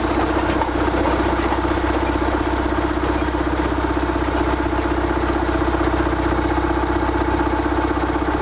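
Plymouth switcher locomotive's engine idling, a steady hum with a fast even throb and a low rumble underneath.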